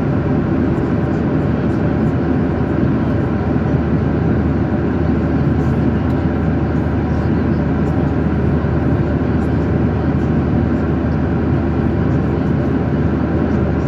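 Steady airliner cabin noise: an even rush of jet engines and airflow heard from inside the passenger cabin, with a low hum underneath.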